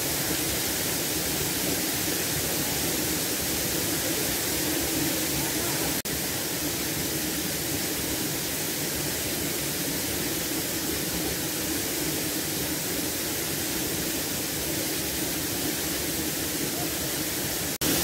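Waterfall rushing steadily into a rock pool. The sound briefly drops out about six seconds in and again near the end.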